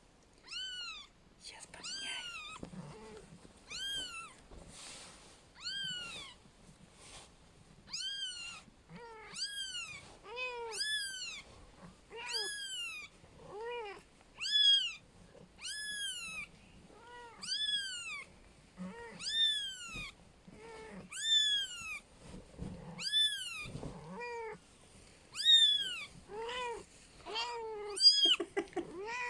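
Kittens meowing over and over: short, high-pitched mews that rise and fall in pitch, roughly one a second, with some calls overlapping.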